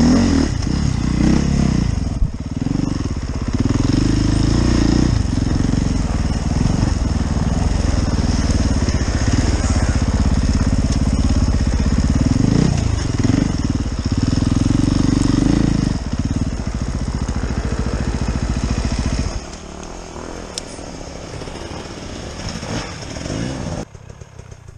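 Husaberg FE450 four-stroke single-cylinder enduro bike engine revving up and down in repeated throttle bursts, then dropping to a much quieter idle about three-quarters of the way through.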